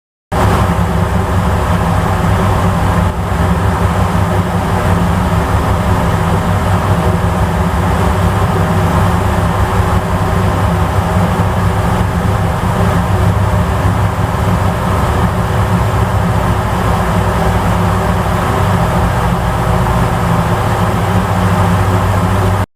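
A ferry's engines running with a steady low drone, under a constant rush of wind and water noise.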